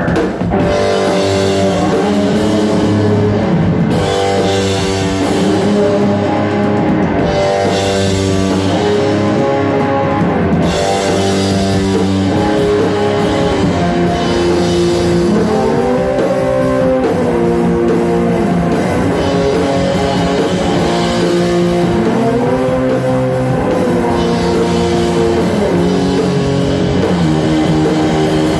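Loud live rock music: electric guitar playing sustained notes with several pitch bends over drums.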